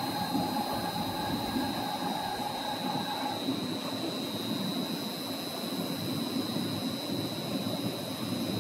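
CNC metal spinning machine running with its spindle turning the mold: steady mechanical noise with a high, even whine and a lower tone that stops about three seconds in.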